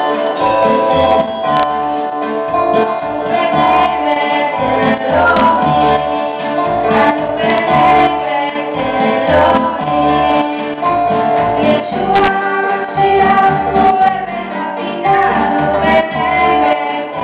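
A girl singing a worship song through a microphone, accompanied by a nylon-string classical guitar and an electronic keyboard playing low bass notes.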